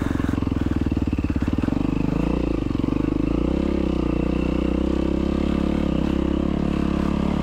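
Yamaha WR450F dirt bike's single-cylinder four-stroke engine running steadily as it rides along a dirt trail, its note shifting briefly about two seconds in.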